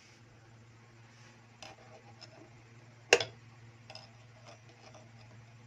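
Light metal clicks and one sharp clack about three seconds in, from hand work on the presser foot mechanism of an old Singer sewing machine.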